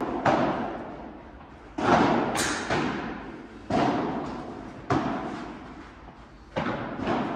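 A padel rally: the ball sharply struck by rackets and bouncing off the court and glass walls, about eight irregular hits, each ringing out in the echoing hall.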